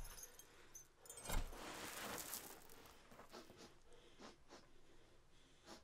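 A single dull thud about a second and a half in, followed by about a second of faint rustling and a few small scattered clicks; otherwise quiet.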